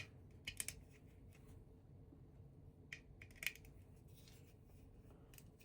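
Faint clicks of small plastic LEGO pieces being handled and pressed together, a few separate clicks with the loudest about three and a half seconds in.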